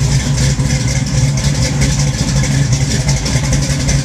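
Big-block 468 cubic-inch V8 with a Comp Cams Muther Thumper roller cam, warmed up and idling steadily.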